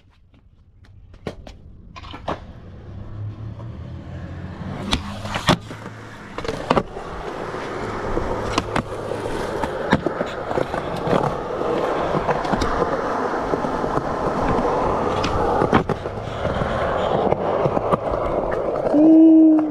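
Skateboard wheels rolling on smooth concrete, growing louder, with sharp clacks of the board's tail and deck striking the ground as tricks are popped and landed. Near the end a brief pitched sound, a shout or squeak, is the loudest moment.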